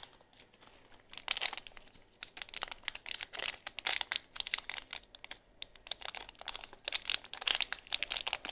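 Thin plastic packaging bags crinkling in the hands as they are handled. The crinkling comes in irregular bursts, starting about a second in.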